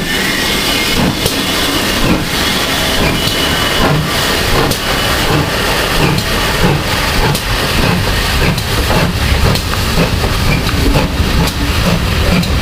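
Steam-hauled train passing close by, its wheels clattering over the rail crossing, with a steady hiss of steam.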